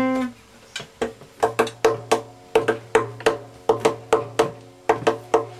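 Nylon-string classical guitar strummed in short, choppy chord strokes, about three or four a second in a steady rhythm. One chord rings out at the start before the strokes begin.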